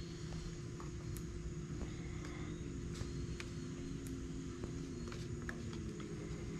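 A steady low mechanical hum and rumble, with faint scattered clicks of metal tongs working food on a charcoal grill grate.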